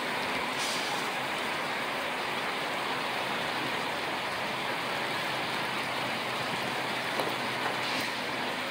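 Heavy rain falling in a steady, even hiss, with a faint low city hum underneath.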